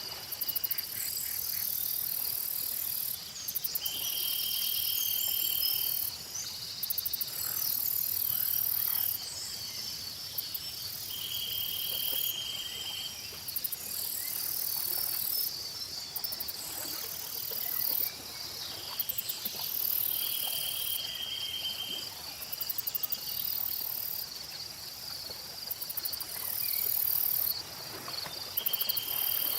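Insects, crickets among them, chirping in a dense chorus: a high shrill that switches on and off every few seconds over steady chirping. A short trill of about a second repeats roughly every eight seconds.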